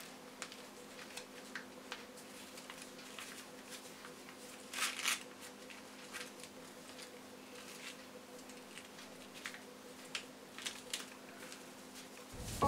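A sheet of paper being folded and creased by hand: faint rustles and small taps, with a louder rustle about five seconds in, over a faint steady hum. Music comes in at the very end.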